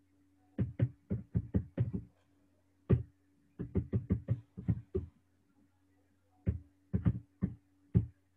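Computer keyboard being typed on in quick runs of keystrokes: a run of about seven, a single stroke, a run of about eight, then a slower run of about six, over a faint steady low hum.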